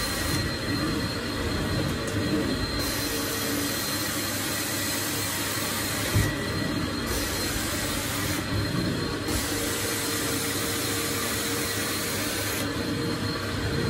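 Carpet extraction machine's vacuum motors running steadily while the cleaning wand is drawn across the carpet, spraying and sucking up water. The high hiss drops away briefly several times, and there is a single knock about six seconds in.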